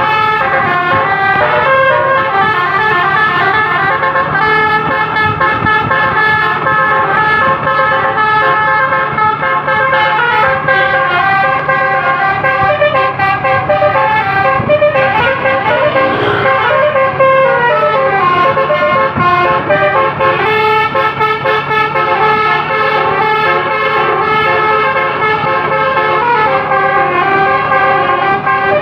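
Basuri multi-trumpet air horn (telolet horn) played continuously, several tones sounding together and changing in steps like a tune, with a passage of sliding pitches about halfway through.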